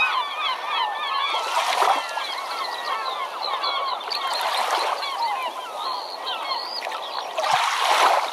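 A large flock of birds calling: many short, overlapping calls rising and falling in pitch, goose- or duck-like. Three louder rushes of noise swell under them, and there is a low thump near the end.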